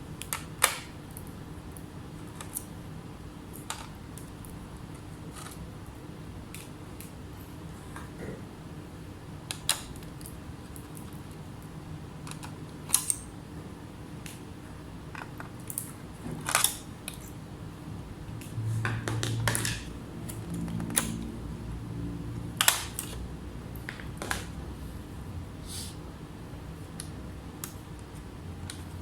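Scattered sharp clicks and light taps of small tools and parts being handled on a repair bench, over a steady low hum. About two-thirds of the way in, a low buzz lasts around three seconds.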